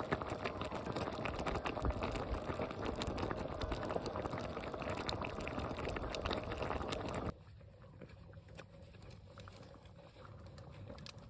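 Food cooking with a dense bubbling crackle, which cuts off sharply about seven seconds in. What follows is a much quieter background with a faint steady hum.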